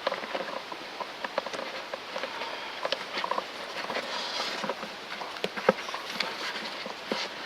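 Irregular small clicks, crinkles and rustling of hands working a rubber hose and vinyl electrical tape in an engine bay, with the engine off.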